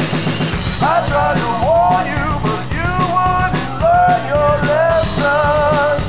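Rock song with a drum kit and a melody line that slides up into held notes, wavering on the last held note near the end.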